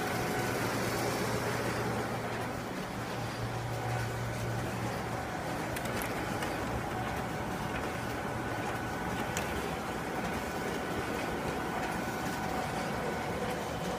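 Steady whirring hum of production printers running, with faint steady tones over an even hiss and a low hum that fades after about five seconds.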